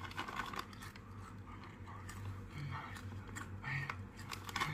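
Quiet chewing of crunchy ghost pepper tortilla chips, with scattered small crunches and mouth clicks. Two brief low hums come from the eater about two and a half and nearly four seconds in.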